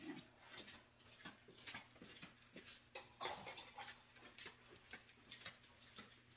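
Faint footsteps of sandals on a tile floor, a string of soft, uneven taps and slaps, with a louder clatter about three seconds in as a fork is picked up.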